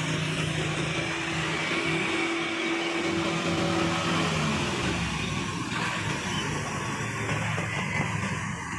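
Diesel dump truck driving past at road speed: a steady engine hum for the first few seconds, then rougher engine and tyre noise as it goes by.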